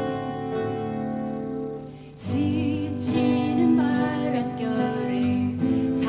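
Instrumental music with acoustic guitar strumming under sustained backing tones, and a wavering melody line entering about two seconds in. This is the instrumental introduction of a ballad before the singing begins.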